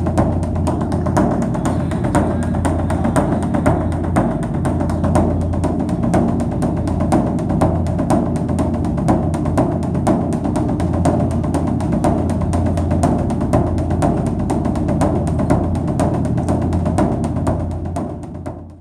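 Background music of rapid, dense drum and wood-block-like percussion over a steady low drone, fading out near the end.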